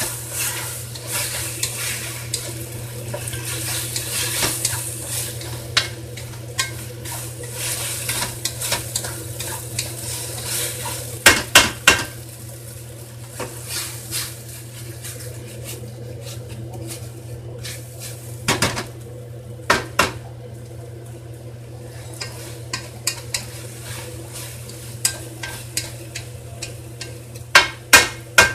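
Yaki udon stir-frying in a nonstick wok, turned with a wooden spatula: a sizzle that is strongest in the first few seconds and then dies down. The spatula knocks sharply against the pan in short clusters, about a dozen seconds in, twice around twenty seconds, and again near the end.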